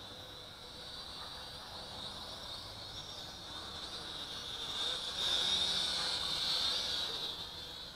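SJRC X300-1C toy quadcopter's propellers whirring in flight, growing louder about five seconds in as it comes down close, over a steady chirping of crickets.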